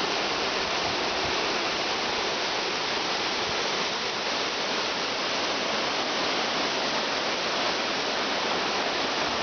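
Orekhovsky waterfall rushing: a steady, even roar of falling water.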